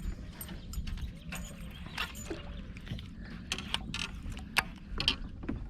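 Irregular clicks and light knocks of fishing tackle being handled, over a low steady rumble.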